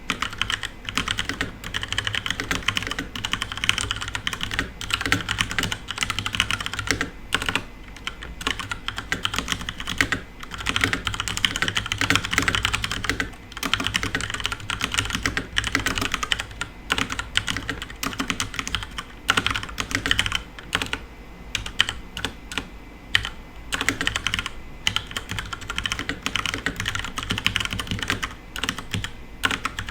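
Fast, continuous touch typing on a FILCO Majestouch Ninja Tenkeyless mechanical keyboard with tactile, non-clicky Cherry MX Brown switches: a dense run of key clacks. The run breaks off in short pauses about 7 seconds in, around 13 seconds in, and for a couple of seconds past the 20-second mark.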